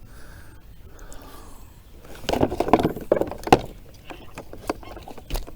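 Water splashing and knocks against a kayak hull, a loud burst lasting about a second and a half, then a few light clicks.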